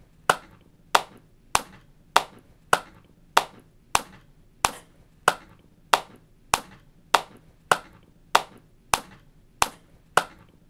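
One person clapping their hands in a slow, steady beat, about three claps every two seconds, some seventeen sharp claps in all.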